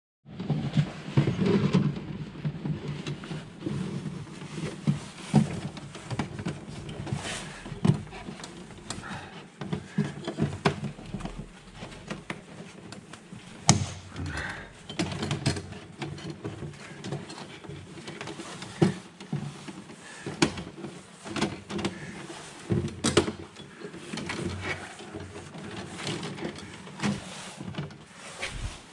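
Bundles of electrical wires rustling and scraping as they are handled and sorted inside a distribution board, with many scattered sharp clicks and knocks; the sharpest knock comes about halfway through.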